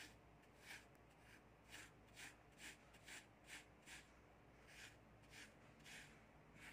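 Toy tracked digger pushed by hand through kinetic sand: faint soft scraping crunches, about two a second, pausing briefly just past the middle.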